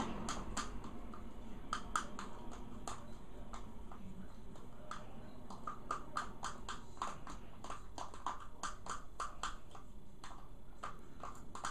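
Metal teaspoon stirring thick shea butter and blush in a small plastic container: a quick, irregular run of clicks and taps as the spoon knocks and scrapes against the plastic.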